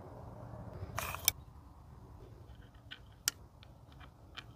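Handling noise from a hand-held muzzleloader pistol: a short rustle about a second in, then scattered sharp small clicks, over a faint low wind rumble on the microphone.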